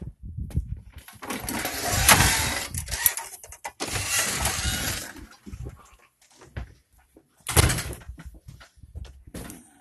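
Handling noise from a phone microphone rubbing and rustling against a knit sweater as the phone is carried: one long loud stretch of about four seconds, then a shorter burst near the end.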